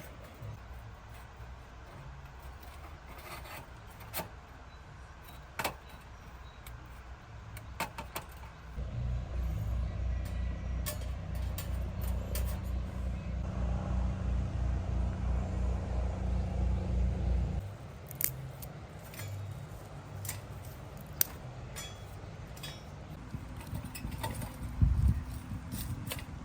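A low engine hum with a steady pulse comes in about a third of the way through and stops abruptly after about nine seconds. Scattered light clicks and clinks, like keys or small metal items being handled, run around it.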